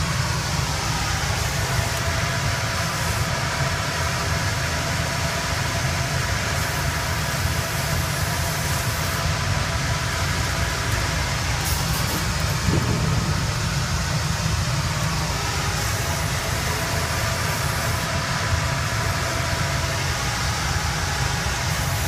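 Sawmill headrig running: log carriage and saw working a log into a cant, a loud steady rumble with hiss throughout.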